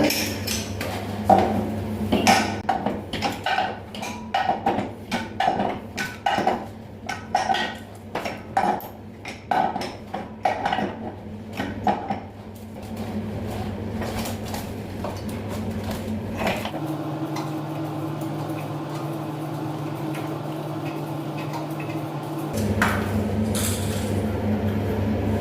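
Metal clinks and clicks, one or two a second, of a tool working on a new water heater heating element as it is tightened into the tank, fitted with a washer so it does not leak. In the second half the clinking stops and a steady hum carries on.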